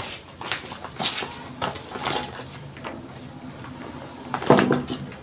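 Dried leaf wrapping of a chikwangue (Congolese cassava bread) bundle crinkling and crackling as it is peeled open by hand, in a series of separate sharp rustles, the loudest near the end.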